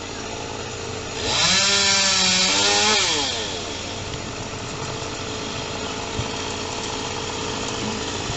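Chainsaw revving up about a second in, running at high speed for about two seconds, then winding back down, with a steady engine idling underneath throughout.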